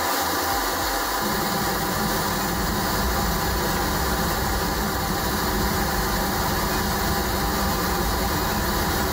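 Pink-noise test signal played at high level through a car audio system's Gramond 3-way component speakers and subwoofer for real-time-analyzer tuning, heard inside the car cabin. It is a steady, even hiss across all pitches, and its deep bass fills in about a second in.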